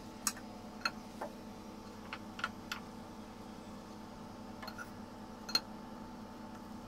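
Light clicks and taps of a nylon spatula against a nonstick frying pan as a slice of bread is pressed and shifted while it warms, scattered irregularly over a faint steady hum.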